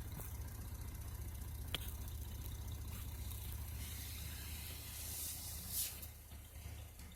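A pair of Orion XTR3 12-inch subwoofers in a bandpass box playing deep bass, a steady low rumble that starts abruptly and eases off near the end. The woofers play clean, with no major voice-coil rub.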